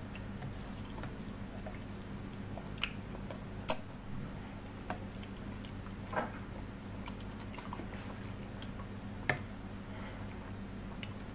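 Close-up chewing of a mouthful of rice and curry, with a few sharp wet mouth clicks scattered through it, over a steady low hum.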